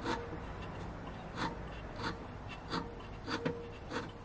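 Scissor blade in a Twice as Sharp sharpener's holder, brushed lightly against the spinning polishing wheel in about seven short rasping strokes, over a steady low hum. These are test passes to see whether the wheel meets the marker-coloured edge.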